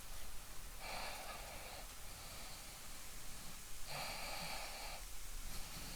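Two heavy, noisy breaths through the nose, about a second each, one near the start and one about four seconds in: a man straining as he squeezes a stiff cord fitting with a vice grip.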